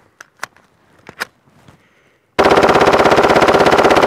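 A few clicks, then about two-thirds of the way in a Gen 3 Glock 17 fitted with an auto sear fires a fast, even full-auto burst of roughly twenty shots a second that is still going at the end.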